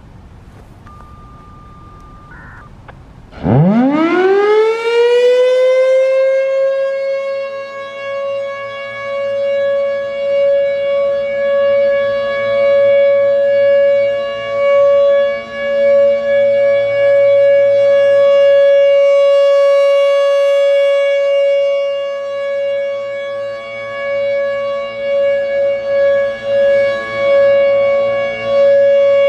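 Federal Signal Thunderbolt 1000 civil-defense siren starting up on its steady Full Alert test signal. About three and a half seconds in it winds up with a fast rising pitch, then holds one steady tone whose loudness swells and dips.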